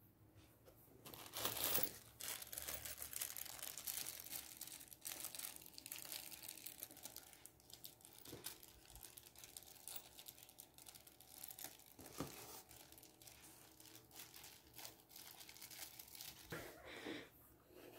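Clear plastic wrapping crinkling and rustling as it is handled, in irregular bursts starting about a second in, loudest just after that.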